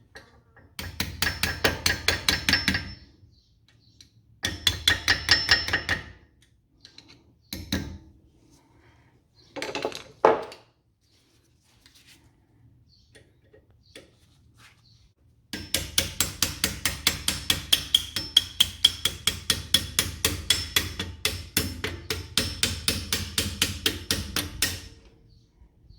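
Hammer tapping out the brake pad retaining pins from the large AMG front brake caliper: bursts of quick metallic taps, about four a second, with a ringing note. The longest run of taps lasts about ten seconds in the second half.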